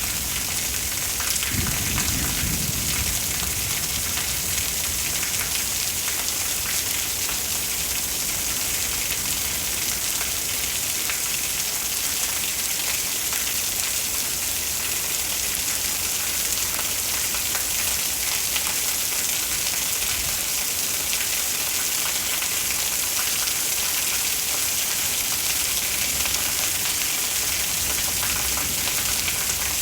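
Steady rain of a thunderstorm, a loud even hiss of falling drops, with a brief low rumble about two seconds in.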